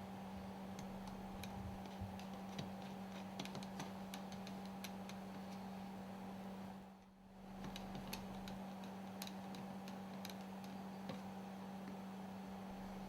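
Faint, irregular light clicks and taps of small metal parts being handled, as non-return valves are mounted into the lubricator's cylinder block, over a steady low electrical hum. Everything drops away briefly about halfway through.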